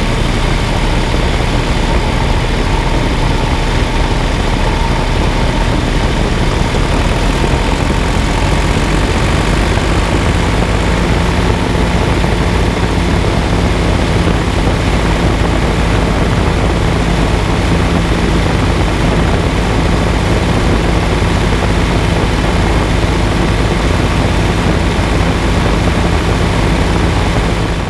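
John Deere tractor's diesel engine running steadily as the tractor drives along, heard close up from beside the front axle with a constant rumble. About a third of the way in, a steady low hum joins the engine note.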